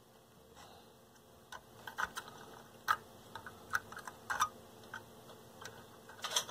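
Irregular small clicks and taps of hands and a soldering iron working at an amplifier circuit board while a replacement capacitor's leads are worked into the board's holes. There are about a dozen sharp ticks, unevenly spaced, with a quick cluster near the end.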